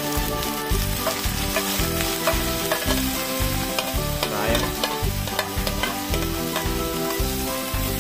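Julienned chayote sizzling as it slides off a plate into a hot oiled frying pan, with a spatula scraping it off the plate and stirring it in the pan, clicking against the pan about halfway through.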